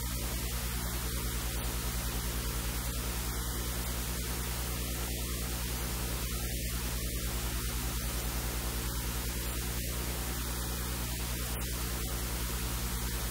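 Steady electrical hiss with a low mains hum buzzing under it: noise from the recording chain, with no other sound over it.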